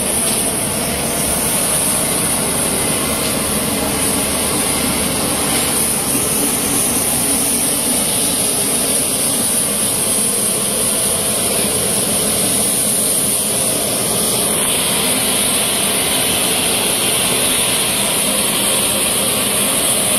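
Steady loud whine and rumble of a military transport aircraft's gas turbine running on the ground, with a high whine held throughout. A brighter hiss comes in about fifteen seconds in.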